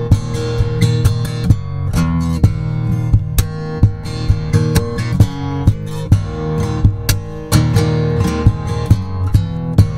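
Baton Rouge AR31C/ACE acoustic guitar with a solid cedar top, played fingerstyle: plucked bass notes and ringing chords, with frequent sharp percussive accents on the strings.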